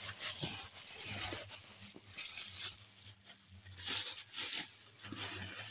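Bubble wrap and cardboard packaging crinkling and rustling as a parcel is unpacked by hand, with some tearing, in irregular bursts that go quieter about halfway through.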